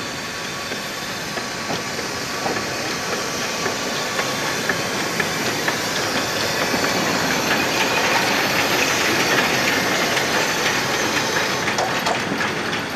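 Narrow-gauge steam locomotive 99 1584-4, a Saxon IV K tank engine, moving slowly past with a steady hiss of steam and light clicks from its wheels on the track. It grows louder to a peak about eight seconds in, then eases off.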